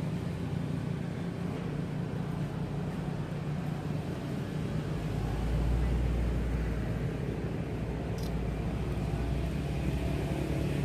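Steady low engine hum, like a motor vehicle running, with a deeper rumble swelling about halfway through and one brief faint tick near the end.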